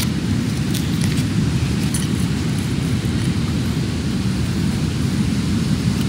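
Wind buffeting the microphone: a steady, low rumbling noise, with a few faint ticks in the first couple of seconds.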